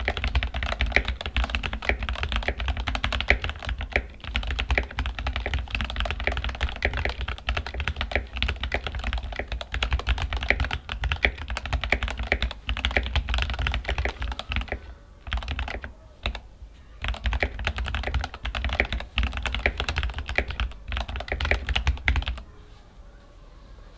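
Typing on a Keychron K8 Pro mechanical keyboard fitted with Gateron G Pro Red linear switches: a fast, continuous run of keystrokes with a few short pauses past the middle. The typing stops about a second and a half before the end.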